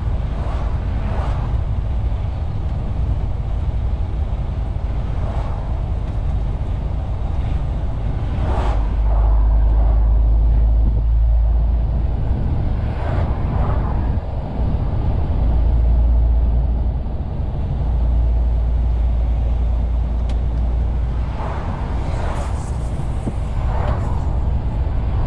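MAN TGX 470 truck heard from inside the cab while driving: a steady, deep diesel engine and road drone, with brief rushes of higher noise every few seconds.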